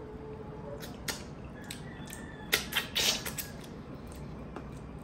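Close-miked mouth sounds of eating stewed tuna eyes: a few sharp wet smacks and clicks, loudest in a cluster about two and a half to three and a half seconds in.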